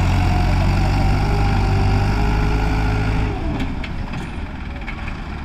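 Diesel tractor engines working under load as one tractor tows another that is hauling a loaded trailer through soft, rutted soil. About three seconds in, the engine note glides down and the sound drops and grows quieter, with a few light knocks after it.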